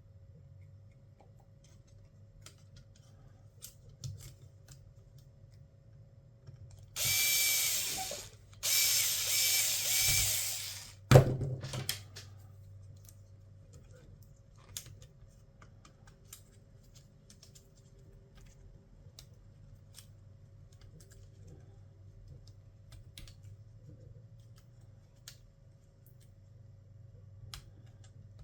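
A small electric screwdriver runs in two short bursts, the second longer, followed by a sharp click. Light ticks and clicks from handling small laptop parts and screws fill the rest.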